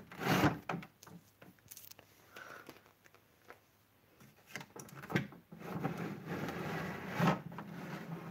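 Handling noise: a knock and rubbing at the start, then after a quieter spell more rustling with two sharper knocks, as plastic toys and the phone are moved against a wooden shelf.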